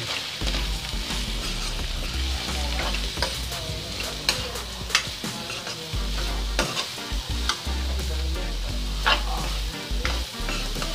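Spatula stirring and scraping chopped onions, cauliflower stalks and spices around a hot kadhai, with a steady sizzle from the frying and irregular clicks of the spatula against the pan.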